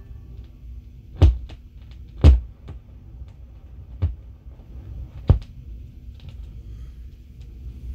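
Gates CB-500 transcription turntable between cuts: four low knocks and a few fainter clicks as the tonearm is handled, over a steady low rumble.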